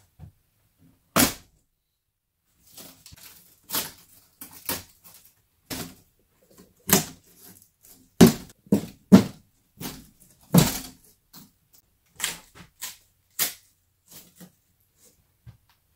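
Wooden door trim and thin wall paneling being pried and pulled off by hand: about a dozen sharp cracks, knocks and thuds at irregular intervals, the loudest cluster in the middle.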